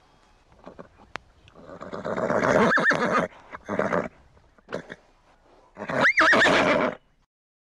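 Horse neighing twice: a long whinny about two seconds in and another about six seconds in, each with a quavering pitch, with a few shorter sounds between.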